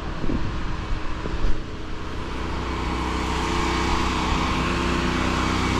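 Pressure washer's gas engine running steadily at constant speed. A steady hiss grows in after about three seconds.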